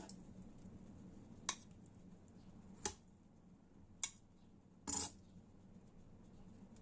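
Metal kitchen utensil clinking against cookware four times, about a second apart, the last clink a little longer.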